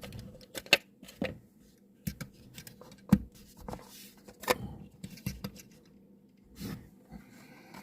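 Irregular small clicks, taps and brief scrapes of a 1:64 die-cast model car and its plastic packaging being handled, with a few sharper knocks.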